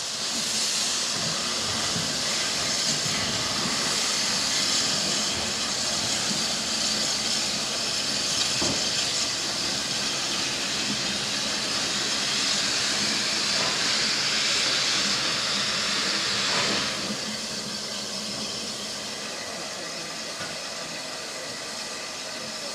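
Steam locomotives standing in steam, letting off a loud, steady hiss of escaping steam. About three-quarters of the way through the hiss drops to a quieter level and carries on.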